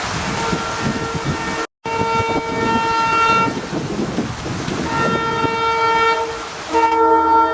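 WDP4D diesel locomotive's air horn sounding a multi-note chord in long blasts: one held for about three and a half seconds, a shorter one after a pause, and a louder one starting near the end. A steady rushing noise of heavy rain and the moving train runs underneath.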